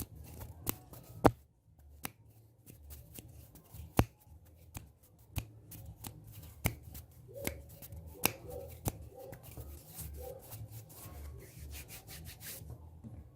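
Close-miked ASMR hand sounds: hands rubbing with irregular sharp snaps and clicks, the strongest about a second in and again about four seconds in.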